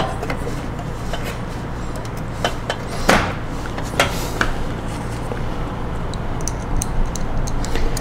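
Scattered clicks and light knocks of an ISA expansion card being seated in its slot and the metal computer chassis being handled, over a steady low hum. The firmest knock comes about three seconds in.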